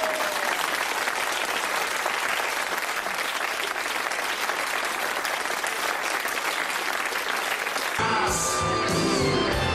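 Studio audience applauding. About eight seconds in, the applause gives way suddenly to music with a strong, steady bass line.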